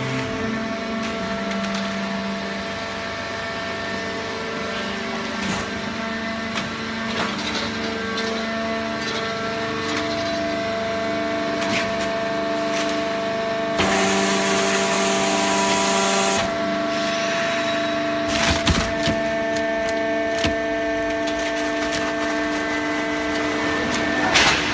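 Waste-paper baling press working: a steady machine hum with scattered crackling and sharp knocks of cardboard being pressed, the loudest knocks near the end.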